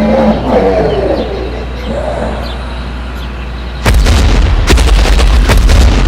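Intro sound effects: a few falling, whooshing tones, then about four seconds in a sudden loud, deep boom with a rapid crackle of sharp cracks lasting about two seconds.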